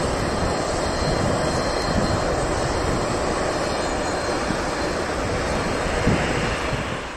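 Airbus A350-900 jet airliner's Rolls-Royce Trent XWB turbofan engines running loud as the aircraft rolls along the runway: a steady jet roar with a deep rumble underneath, fading out at the very end.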